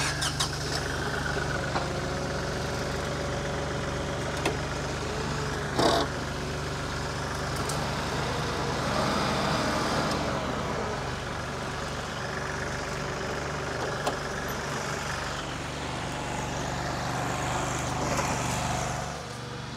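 Engines of a Kioti diesel compact tractor and a riding lawn mower running steadily as the tractor drives off and the mower pulls away. There is a single clunk about six seconds in.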